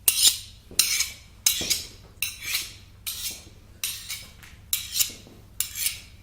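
A metal knife blade scraped in long strokes, as when sharpened on a steel. There are eight even strokes, about one every three quarters of a second.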